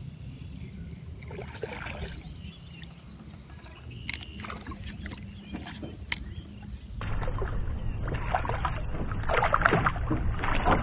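Water sloshing and splashing around a small jon boat, with scattered light clicks and knocks. About seven seconds in it becomes louder and more muffled, with the splashing strongest near the end.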